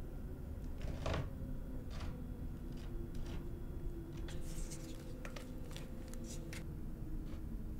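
Scattered small scrapes and clicks of hands working wet plaster from a bucket, over a faint steady hum.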